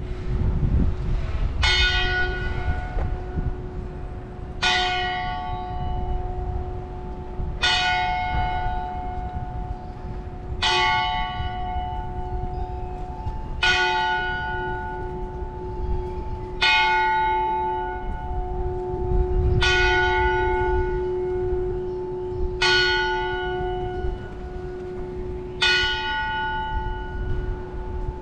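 A single church bell tolling slowly: nine strokes of the same pitch, about three seconds apart, each ringing on until the next, over a steady low rumble.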